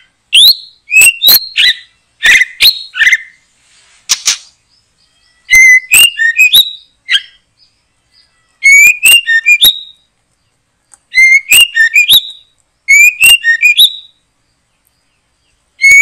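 White-rumped shama (murai batu) singing loud song phrases, about seven bursts a second or two apart, each mixing clear rising whistles with sharp clicking notes.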